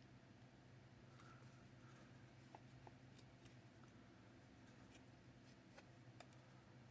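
Near silence: a steady faint low hum with a few faint, scattered clicks of small wooden model-kit parts being handled and fitted.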